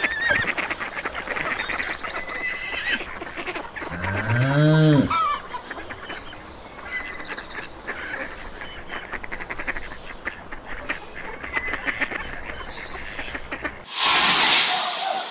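Geese honking in a busy, continuous chorus, with one loud, long call that rises and falls in pitch about four seconds in. A loud rushing noise cuts in about a second before the end.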